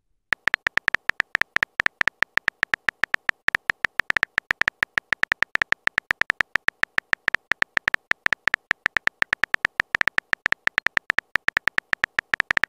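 Texting-app typing sound effect: a rapid, slightly uneven stream of short electronic ticks, about seven or eight a second, one per character as a chat message is typed out.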